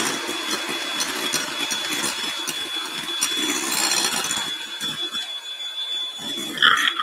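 Electric hand mixer running steadily, its twin beaters whisking egg whites and sugar in a glass bowl, with a constant high whine. The whites are being beaten to stiff peaks.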